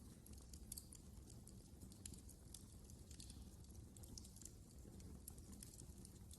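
Wood fire in a fireplace crackling: faint, irregular pops and snaps over a steady low rumble of burning.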